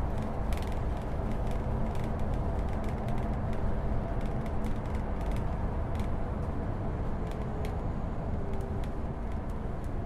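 Bus riding along, heard on board: a steady low engine and road rumble with frequent small rattles and creaks from the bus body.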